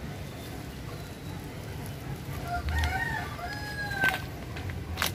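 A rooster crowing, one crow of several linked notes ending in a long held note, about halfway through. Two sharp clicks follow near the end, over a steady low background rumble.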